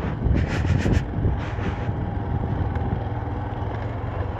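Motorcycle engine running steadily at low speed, with a few sharp rattles and knocks in the first second as the bike rides over rough gravel.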